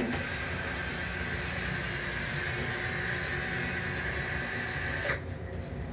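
Railcar toilet's flush cycle hissing steadily, then cutting off suddenly with a small click about five seconds in. The low rumble of the train carries on underneath.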